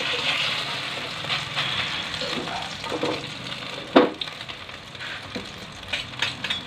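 Beef burger patties sizzling steadily in hot oil in an aluminium wok, with a metal spatula scraping and turning them. A sharp clank of the spatula against the wok comes about four seconds in, and a few lighter taps near the end.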